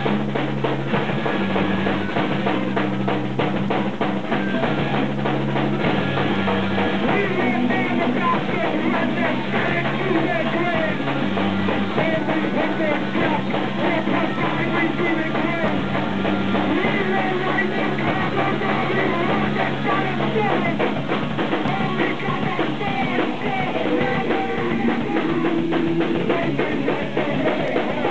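Live rock band playing a song: drum kit, electric guitars and bass, with a singer singing into a handheld microphone over them.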